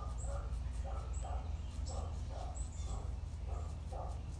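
A dog panting, a soft breathy rhythm of about two breaths a second.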